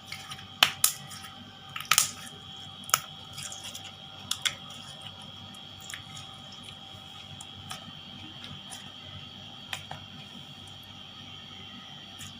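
Clear glue-and-borax slime being squeezed and poked, giving squishy sounds with sharp pops and clicks: a cluster in the first three seconds, then a few scattered ones.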